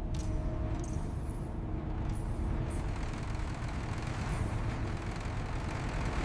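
A steady low mechanical rumble, with a few short hisses, like escaping air, coming and going over it.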